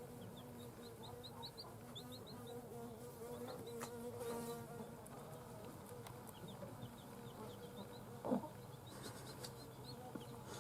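Newly hatched chicks peeping faintly in short, quick runs of high chirps, over a steady low hum. A single soft thump about eight seconds in.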